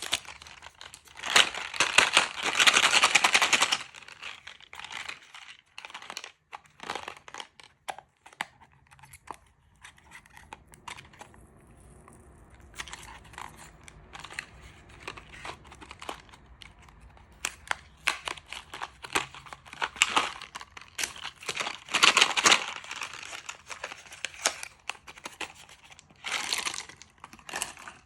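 Candy wrappers crinkling and tearing as sweets are unwrapped by hand, with scattered small clicks between the bursts. The loudest crinkling comes in the first few seconds, with more bursts about twenty seconds in and near the end.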